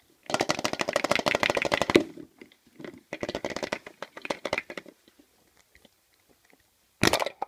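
A large hollow plastic toy egg being gripped and turned in the hands: two bouts of rapid, rasping creaks from plastic rubbing against fingers and against its own seam. Near the end comes a short, sharp pop as the egg's two halves are pulled apart.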